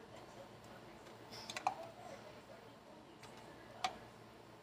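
Light clicks of a metal spoon against glass while spreading tomato sauce in a glass baking dish: a quick cluster of three or four about a second and a half in, and one more near the end.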